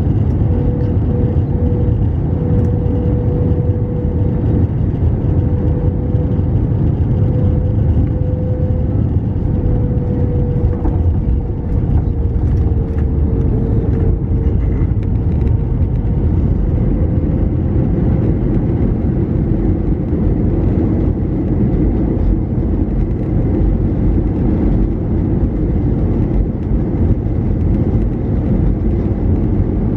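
Cabin noise of an Airbus A321-200 heard over the wing during landing: a steady roar of engines and airflow with an engine tone that sinks slightly around the middle. A few light knocks come about midway as the wheels touch down, then a deeper roar follows during the runway rollout.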